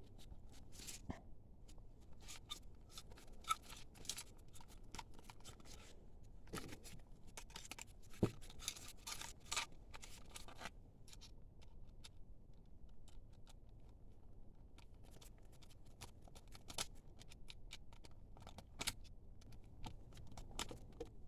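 Faint scattered clicks, scrapes and rustles of an air intake kit's air filter being slid onto the intake pipe and its clamp being fitted, with a few sharper ticks along the way.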